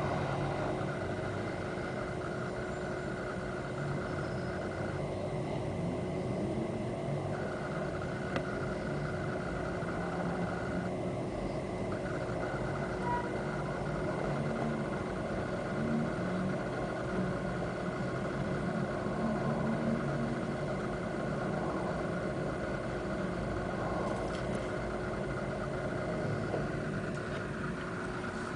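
Steady mechanical hum with a low rumble, unchanging throughout.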